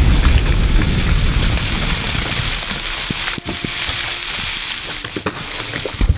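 The aftermath of a large buried firecracker's blast: a loud rushing rumble that slowly fades, with scattered ticks and patters of sand and dirt raining back down. There is a sharp thump near the end.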